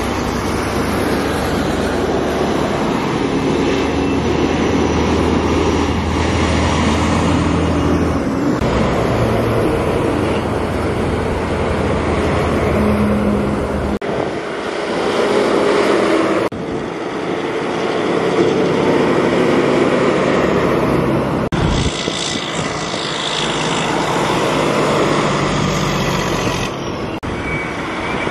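Heavy trucks with trailers driving past close by, one after another: diesel engines running and tyre noise on the road, rising and falling as each one passes.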